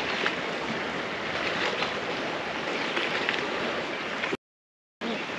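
Water lapping and gurgling against a boat's hull, a steady wash with faint small splashes, broken by a moment of dead silence near the end.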